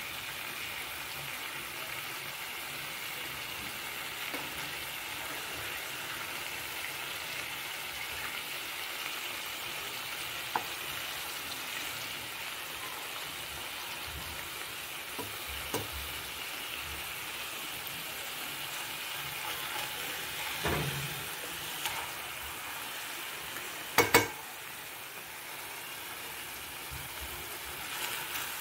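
Marinated chicken pieces sizzling steadily in hot oil in a pan. A spatula knocks against the pan a few times as the pieces are turned, loudest in a sharp pair near the end.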